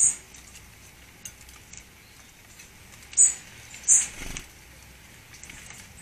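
Garden birds calling: three short, high-pitched calls, one right at the start and two more about three and four seconds in, with faint light ticks between them.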